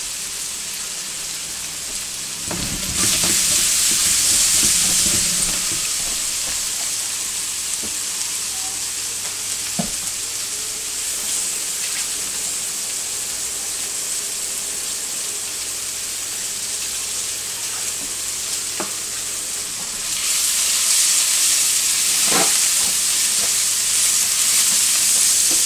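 Brussels sprouts with bacon and butter sizzling in a stainless steel skillet as the butter melts in: a steady frying hiss that grows louder about three seconds in and again near the end, where a wooden spatula stirs them, with a few light clicks between.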